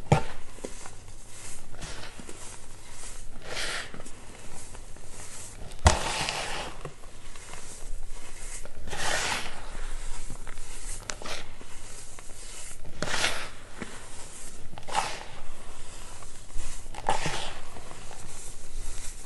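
Hands crunching and crumbling clumps of packed baking soda, with crunchy swishes every second or two as the powder is squeezed and let fall, and one sharp snap about six seconds in.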